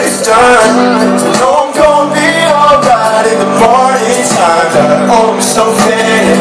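Loud live concert music: a singer's voice over a backing track with sustained bass notes and a steady drum beat.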